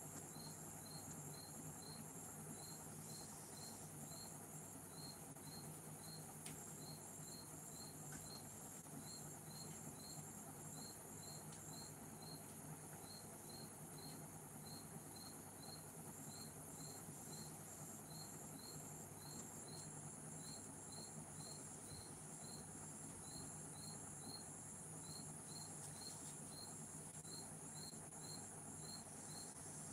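Faint chirping insects: a high chirp repeating about twice a second and a higher pulsing trill that comes and goes, over a low steady hum.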